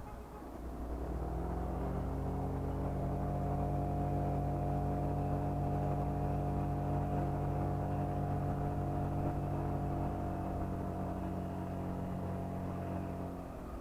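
Honda PCX scooter's single-cylinder engine, on its stock exhaust, pulling under throttle at a steady pitch. It swells about a second in and eases off near the end.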